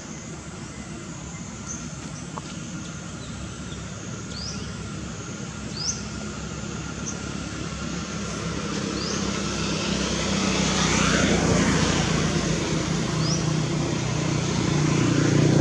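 A motor vehicle passes, its engine noise building steadily to a peak about eleven seconds in and then easing, with another swelling again near the end. Short high rising bird chirps come now and then.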